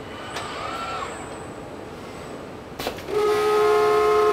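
Automated body-shop machinery running with a brief rising servo-like whine, then a sharp clack and a loud, steady horn-like signal tone lasting just over a second that cuts off suddenly.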